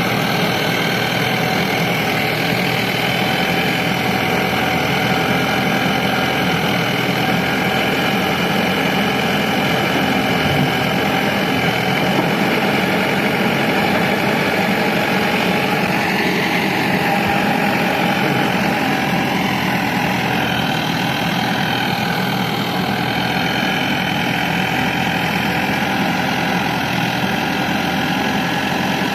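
Heavy diesel engine of earth-moving machinery running steadily at an even speed.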